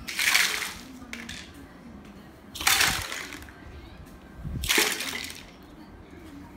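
A broom pushing a heap of plastic toys across a tiled floor, the toys scraping and clattering in three sweeps about two seconds apart.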